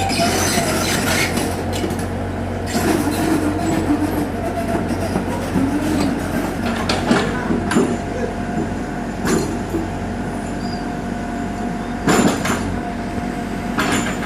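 Heavy earthmoving machine's diesel engine running steadily under load, with sharp metallic clanks every few seconds and a steady whine that sets in about halfway through.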